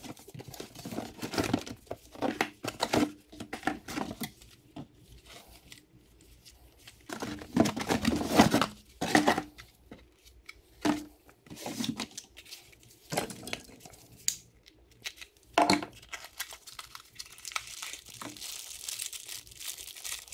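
Unboxing noises: cardboard box flaps and packaging being opened and handled, with irregular rustling, crinkling and tearing and a few louder handling knocks. Toward the end, small plastic parts bags crinkle in the hands.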